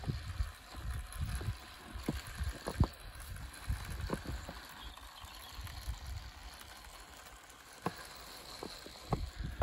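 Small battery model rail truck running along garden railway track, its wheels giving a few sharp clicks at rail joints, over wind rumbling on the microphone.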